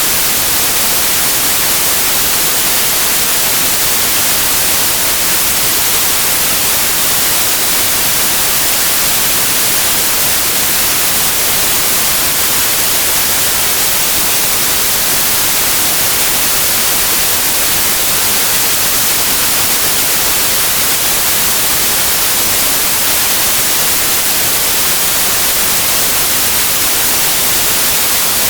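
Steady white noise, a constant even hiss with no changes, played as a sleep sound for babies.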